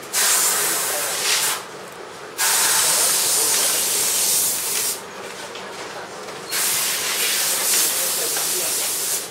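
Compressed air hissing out in three long blasts, the first about a second and a half, the next two about two and a half seconds each, with short quieter gaps between.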